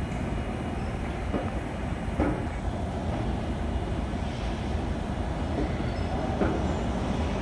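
A Metro Red Line A650 subway train approaching through the tunnel: a steady rumble of wheels on rails with a few sharp clicks, growing slightly louder as it nears.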